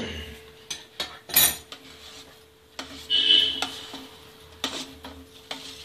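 Metal utensil clinking and scraping against a steel pressure-cooker vessel as thick cooked semolina is stirred: a few sharp clinks, with a louder ringing scrape about three seconds in.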